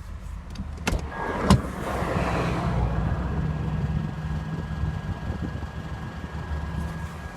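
A car's mechanical noise: two sharp clicks, then a rising rush that settles into a steady high whine over a low rumble.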